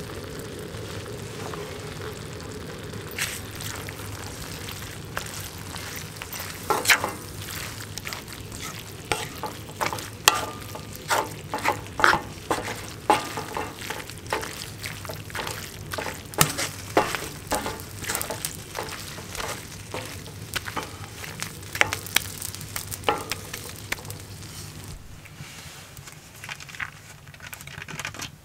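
Beef and vegetables sizzling in a cast-iron skillet, with a wooden spatula stirring and scraping against the pan in quick, irregular strokes. The stirring stops near the end, leaving the steady sizzle.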